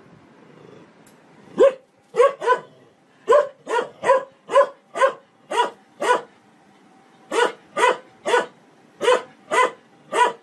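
A dog barking: about sixteen sharp barks in quick runs, starting about a second and a half in, with a short pause a little past halfway.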